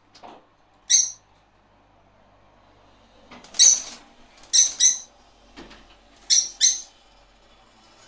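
Budgerigars giving short, harsh screeching calls, about seven of them, several in quick pairs.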